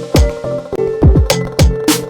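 Loud electronic dance music played over a sound system: heavy kick drums that drop steeply in pitch, over sustained keyboard tones.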